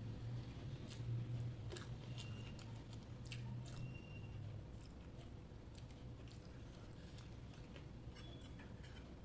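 A person chewing mouthfuls of rice and egg curry, with soft, scattered mouth clicks and smacks. A low steady hum sits underneath, strongest in the first few seconds.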